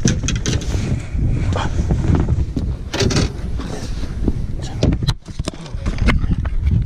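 Wind buffeting the microphone in a low rumble, with clothing rustling and scattered knocks and bumps as someone moves along a small boat's deck, handling its fittings.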